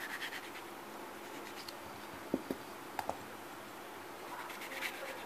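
Kitchen knife cutting through a hand-held snake gourd ring: faint scraping and quick ticks, with a few sharp light knocks a little past two and three seconds in.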